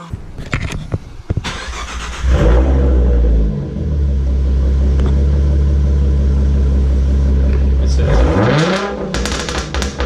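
Ford Mustang V6 with a freshly fitted Roush axle-back exhaust starting up: it catches about two seconds in with a loud flare, then settles into a steady, deep idle. Near the end it is revved once, the pitch rising and falling.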